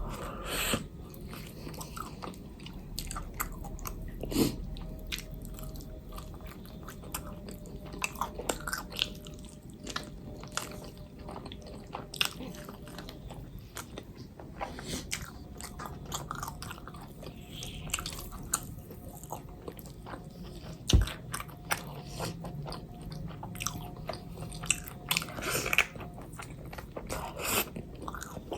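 Close-miked eating of rice, curry and chicken: steady chewing and biting with irregular wet mouth clicks and an occasional crunch, and one sharp click about three quarters of the way through.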